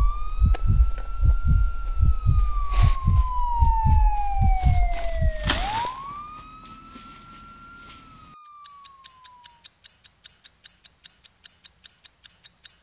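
Wailing siren that rises quickly and then falls slowly in two long sweeps over a fast, deep, even beat. The beat stops about halfway through and the siren fades out. A fast, even ticking, about four ticks a second, starts about two-thirds of the way in.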